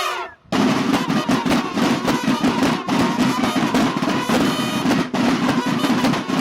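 Snare drums of a Mexican banda de guerra playing a fast, dense cadence, starting about half a second in after a brief break.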